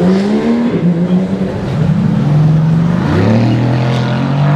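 Mercedes-AMG GT S's 4.0-litre twin-turbo V8 accelerating hard from a standing start. The exhaust note climbs in pitch through each gear, with a clear upshift about three seconds in where the pitch drops and starts climbing again.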